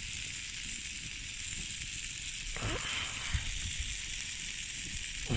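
Campfire of split logs burning with a steady hiss, over a low irregular rumble. A brief rustle about halfway through.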